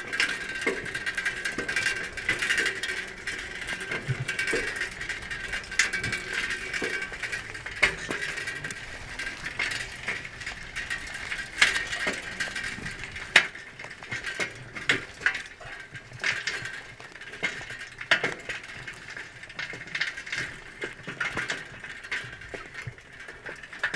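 Bicycle being pedalled at a steady pace: a continuous drivetrain whir with many clicks running through it, a few of them sharper and louder.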